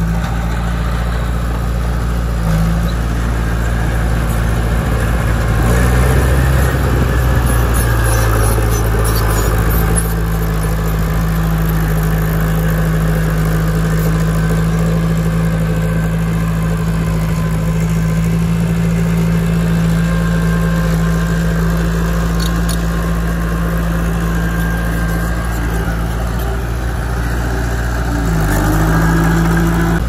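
Diesel engine of a heavy earthmoving machine running continuously. It gets louder and shifts in pitch for a few seconds about six seconds in, then settles to a steady hum, and changes pitch again near the end.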